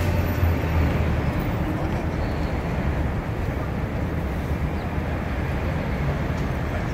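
Steady low rumble of city vehicles and street noise, strongest in the deep bass and a little weaker toward the end.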